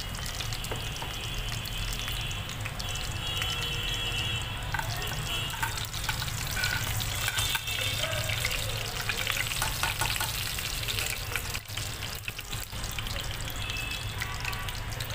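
Cumin seeds sizzling and crackling steadily in hot mustard oil in a steel kadai, as they fry at the start of a tadka.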